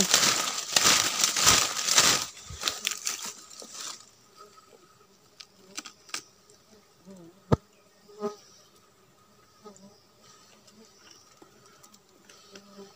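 Fabric rustling loudly against the microphone for the first few seconds, then the faint, steady buzz of stingless bees flying close around the nest, broken by a few sharp clicks.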